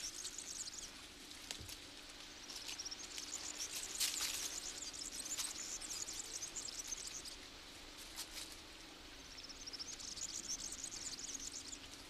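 High-pitched insects trilling in fast pulsing spells that come and go three times, with scattered short clicks among them.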